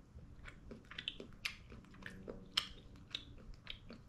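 A person chewing a Caramello Koala, milk chocolate with a caramel centre, close to the microphone: irregular small mouth clicks, a few a second.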